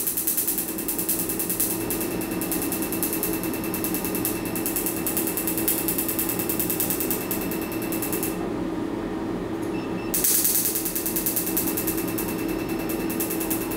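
Picosecond Nd:YAG tattoo-removal laser firing at 10 pulses a second, a rapid run of snaps as the handpiece passes over the tattooed skin, over a steady hum. The pulsing stops for nearly two seconds about eight seconds in, then starts again.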